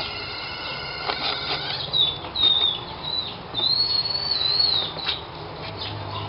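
A bird chirping in high, wavering whistled notes from about two to five seconds in, after a steady high multi-note tone that stops near two seconds. A few light metal clicks come from a piston ring compressor being fitted on a piston at the cylinder bore.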